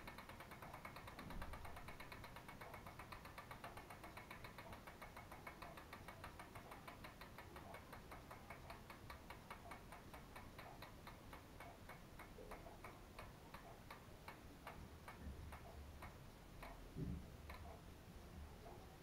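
Freehub of a DT Swiss CSW RA 1.0 rear wheel ticking as the wheel coasts, the clicks slowing steadily from a fast buzz to a few ticks a second as it spins down. A soft thump about a second in and another near the end.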